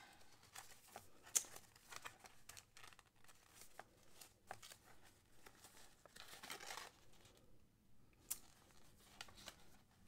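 Faint rustling and crinkling of dyed paper pages, tags and flaps being handled and turned in a small handmade journal, with a few sharper paper clicks, the loudest a little over a second in.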